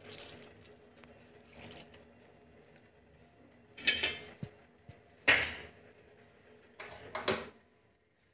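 Metal kitchen utensils clinking and scraping against a pan of tea in about five short bursts, the loudest a little past the middle.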